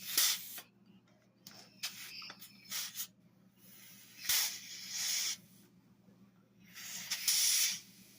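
Repeated blasts of compressed air hissing from a rubber-tipped air blow gun held to a brake caliper: a burst at the start, a few short puffs, then two longer blasts, one mid-way and one near the end. The air is pushing the caliper piston so the dust seal rolls over it.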